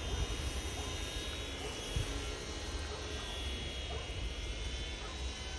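Wind buffeting the microphone as a low rumble, over the faint high, slightly wavering whine of a UMX Yak 54's small electric motor and propeller in flight.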